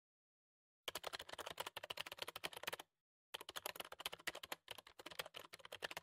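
Rapid computer-keyboard typing clicks, a typing sound effect for on-screen text being typed out. It starts about a second in and comes in two runs, the first about two seconds long, then a short pause, then about three seconds more.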